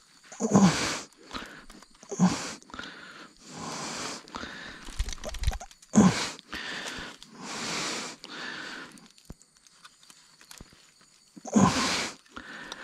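A person's breathing and huffing close to the microphone: several irregular noisy breaths, some sharp, with the loudest about half a second in, about halfway through and near the end.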